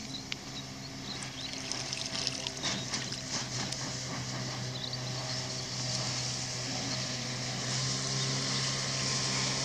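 Outboard motor of a homemade bathtub boat running steadily as a low hum, growing louder as the boat comes closer. Small waves lap at the shoreline, with a few soft splashes early on.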